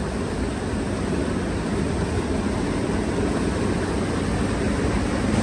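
Steady rushing noise of a large river's flowing water, with wind buffeting the microphone.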